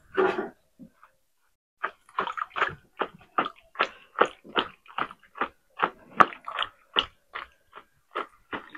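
Wooden spoon mashing tamarind pods and pulp in water in a plastic tub, a quick run of short wet squishing strokes at about three a second. It starts about two seconds in.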